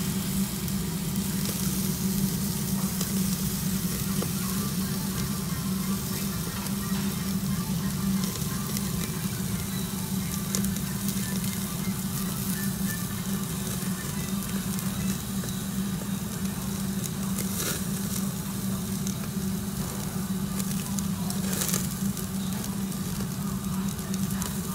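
Meat, sausages and cabbage sizzling steadily on a tabletop yakiniku charcoal grill, over a steady low hum. Two short sharp clicks in the last third come from metal tongs on the grate.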